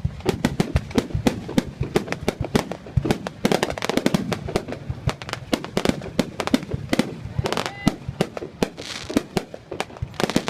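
Fireworks going off in a dense barrage: many sharp bangs a second, with spells of hissing crackle about four seconds in and again near the end.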